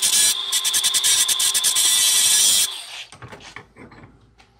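Handheld power tool with a flap disc grinding the outside of an exhaust pipe, a steady high whine with a rasping edge, cleaning the metal bare ready for welding. It cuts off about two and a half seconds in, followed by light clicks and rustles of the pipe being handled in the vise.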